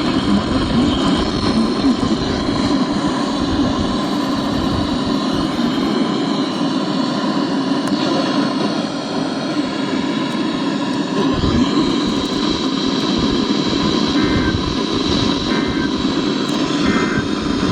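Loud, steady hiss of radio static from a weather radio receiver with no broadcast voice. Three faint short beeps come through near the end.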